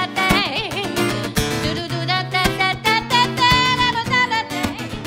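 Live band music in an instrumental break: strummed acoustic guitar over a steady bass and beat, with a wavering, bending melodic lead line on top.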